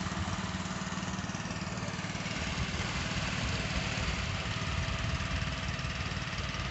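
Small fishing boat's motor running steadily, a low hum that holds one pitch.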